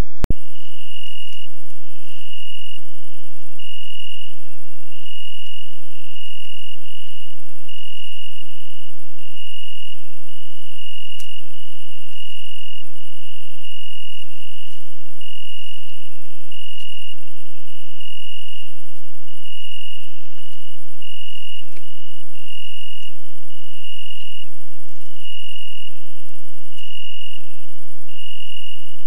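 Crickets chirping in an evenly pulsed, unbroken trill over a steady high hiss.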